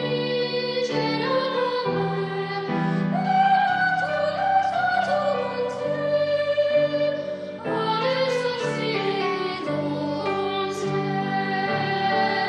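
Choral singing: a high treble voice carries a slow melody over held lower chords, with a short break just before the middle.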